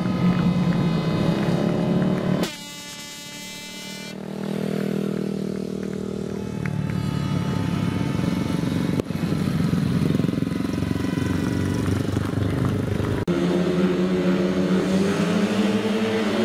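Speedway motorcycles' single-cylinder engines running and revving, rising and falling in pitch. The sound breaks off abruptly about two and a half seconds in into a quieter stretch of a second or two, then changes sharply again near the end.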